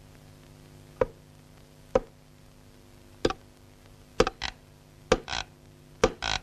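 Hammer driving nails into a wooden crate lid from inside: sharp knocks, one about every second at first, then coming faster in close pairs.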